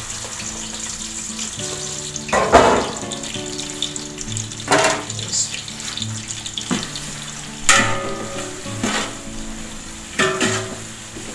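Sliced onions sizzling as they fry in hot oil in a large degchi cooking pot. A slotted ladle stirring them scrapes and knocks against the pot about four times, each louder than the sizzle.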